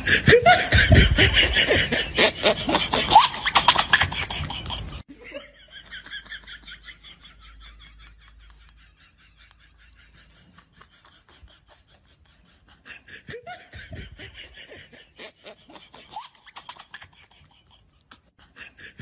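People laughing, loud for the first five seconds, then cutting off suddenly; fainter bursts of laughter return in the second half.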